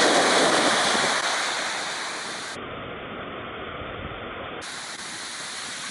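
Ocean surf washing in, loud at first and then falling away over a couple of seconds to a steady, quieter rush.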